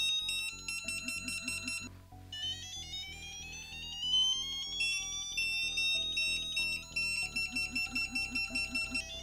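Background electronic music: a steady pulsing beat under bright synthesizer tones that step and glide upward.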